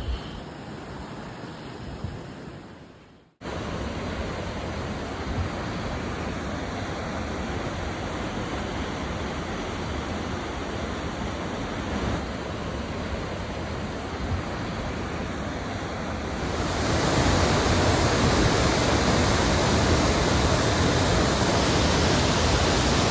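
Steady rushing of a waterfall, an even hiss of falling water. About three seconds in it fades out briefly and comes straight back, and a little past halfway it gets louder.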